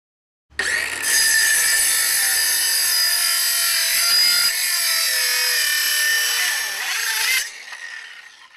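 DeWalt circular saw starting about half a second in and cutting across a pressure-treated board, a steady, loud whine of blade and motor in the wood for about seven seconds. Near the end the cut finishes, the trigger is released and the saw winds down.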